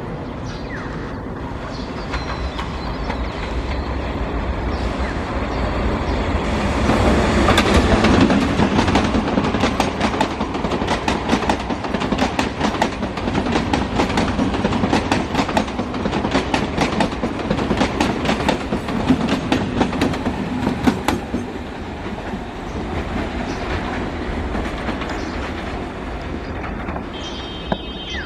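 Electric multiple unit (EMU) suburban local trains running past at speed, their wheels clattering rhythmically over the rail joints. The clatter and rumble build to their loudest about seven seconds in and ease off after about twenty seconds.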